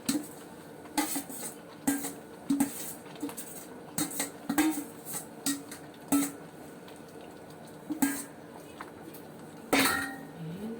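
A cooking utensil knocking and scraping against a cooking pot, with sharp clinks at irregular spacing, roughly one a second, as malunggay leaves are added to and stirred into the mung bean soup.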